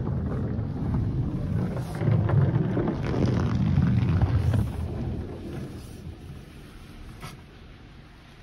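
Touch-free car wash spraying water and foam onto the car, heard from inside the cabin. The spray is loudest in the middle and fades away over the last few seconds as it moves off.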